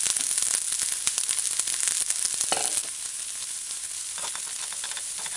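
Sliced onions sizzling in a little hot coconut oil in a skillet as they sauté, a steady hiss with many fine crackles.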